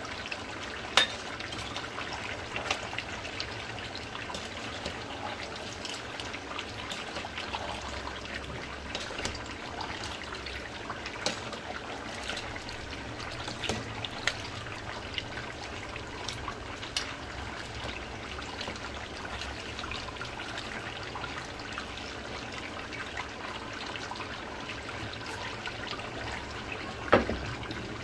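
Mutton cooking in a pot: steady sizzling and bubbling with scattered small pops and crackles. There is a sharper click about a second in and another near the end.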